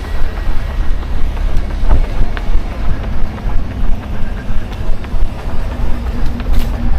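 A runner's footfalls, with wind rumbling on the microphone, pulsing in a steady running rhythm of about two to three strides a second.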